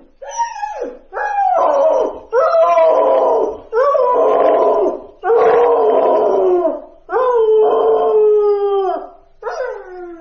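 Puppy crying, slowed down: a run of about seven drawn-out whines and howls, each sliding down in pitch.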